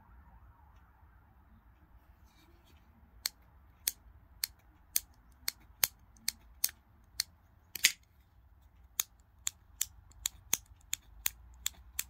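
A series of sharp metallic clicks, about two a second, from a Hogue EX-A01 automatic folding knife being worked in the hand. The loudest, a quick double snap, comes a little past the middle.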